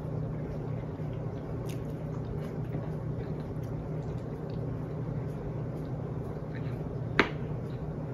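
A spoon clinking and scraping in a soup bowl while someone eats, small clicks scattered throughout and one sharp clink about seven seconds in. A steady low hum runs underneath.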